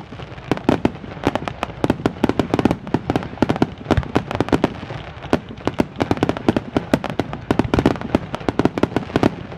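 Fireworks finale: a dense, continuous barrage of sharp bangs and crackles, several a second, overlapping without pause.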